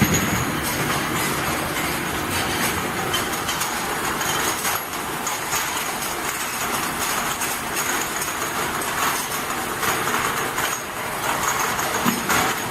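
Bottle and vial washing machine running: a steady mechanical clatter over a constant hiss, with faint clicks throughout.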